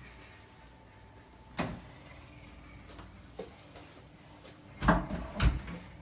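A few knocks and thumps indoors: a sharp one about a second and a half in, then two louder thumps near the end.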